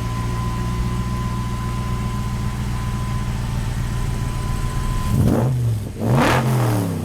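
Shelby Cobra V8 idling with a steady low rumble, then revved twice near the end, each rev rising and falling back.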